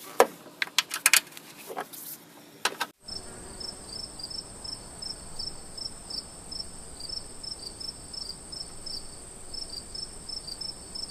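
A few sharp clicks and knocks of hand tools as a screw is refitted. Then, from about three seconds in, insects outdoors: a steady high trill with crickets chirping about three times a second.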